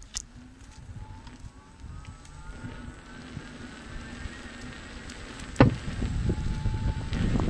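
Gotway MSuper X electric unicycle rolling over a sandy gravel path: the tyre crunches steadily while the hub motor gives a thin whine that rises in pitch over the first few seconds as it speeds up. A sharp knock comes about five and a half seconds in, and the rumble grows louder after it.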